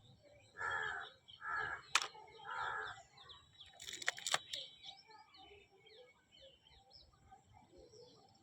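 A crow caws three times in quick succession, with small birds chirping steadily in the background. A few sharp clicks come around the middle.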